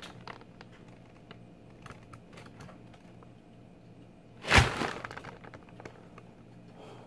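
Brown kraft packing paper handled in the hands, giving faint scattered crinkles and small clicks, with one loud thump about four and a half seconds in.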